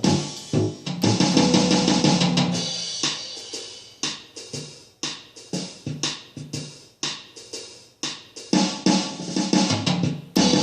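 Bass guitar played along with a drum-kit beat. The groove is full at first, thins to sparse drum hits and single notes in the middle, and picks up again near the end.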